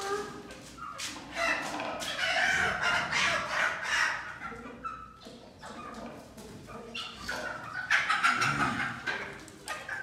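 A rooster crowing and chickens clucking, loudest in two stretches: one from about a second in and another near the end.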